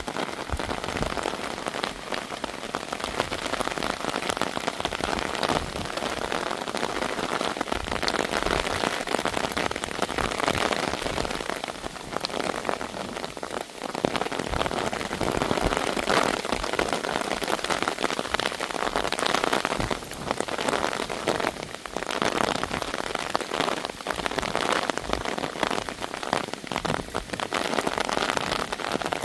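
Heavy rain pattering steadily, drops drumming on a small umbrella held close overhead, with gusts of wind rising and falling.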